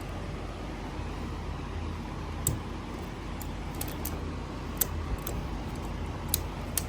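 Electric fan running with a steady low hum, with a scattered handful of light, sharp clicks and ticks from working the ratchet strap and couch springs, starting a couple of seconds in.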